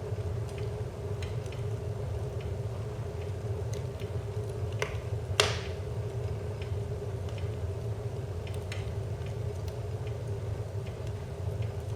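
Wood fire crackling in a fireplace: scattered small pops over a steady low rumble, with one much louder crack about five seconds in.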